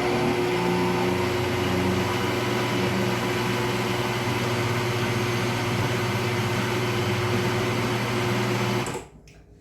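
Kitchen blender running at a steady speed, blending pizza dough batter, with a steady hum. It starts suddenly at the beginning and cuts off about nine seconds in.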